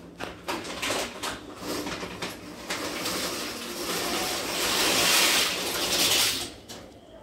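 Dry pasta being poured from a plastic packet into a pot of boiling water. Scattered rattles and rustles build into a steady rushing patter, which stops abruptly near the end.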